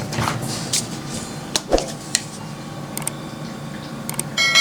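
Small painting tools being handled on a work table: scattered light taps and clicks, with a low knock a little under two seconds in. Near the end a steady ringing tone begins.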